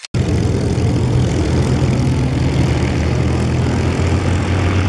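Piston aero engine of a propeller aircraft running steadily at low power, as when idling or taxiing. The sound drops out for an instant at the very start.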